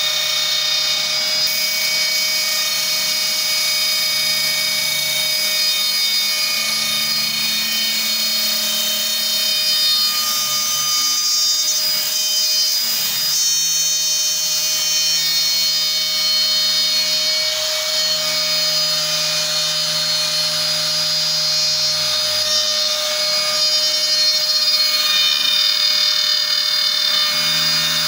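Homemade gantry CNC router cutting a board. The router serving as its spindle runs with a steady high whine, while the stepper motors driving the axes hum low, changing pitch every few seconds as the tool changes direction.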